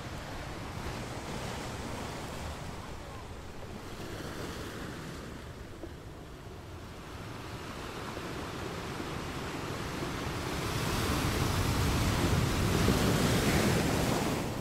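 A rushing noise without pitch that ebbs and swells, growing louder about ten seconds in and falling away near the end.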